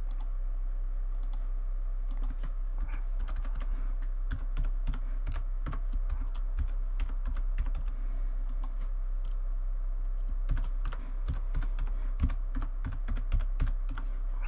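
Typing on a computer keyboard: irregular key clicks over a steady low hum.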